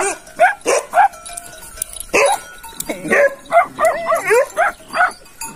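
Dogs barking out on open ground, a quick string of short barks about every half second, some wavering in pitch near the middle, as they bark at cattle.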